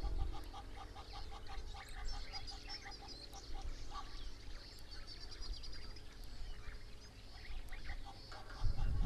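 Birds calling: a rapid run of repeated notes, about five a second, for the first few seconds and again near the end, with high chirps from smaller birds in between. Under it a steady low rumble, swelling to a loud low rumble just before the end.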